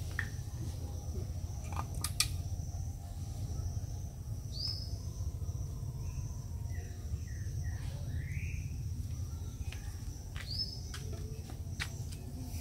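Outdoor ambience: a steady high insect drone over a low rumble, with a few short bird chirps and calls and a single sharp click about two seconds in.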